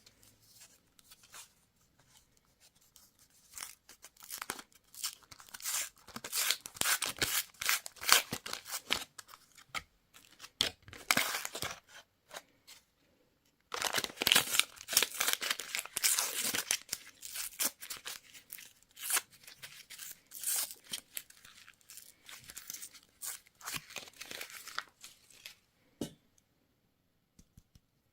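Candy wrappers being torn open and crinkled by hand: two long stretches of quick crackling rustles with a short pause between them.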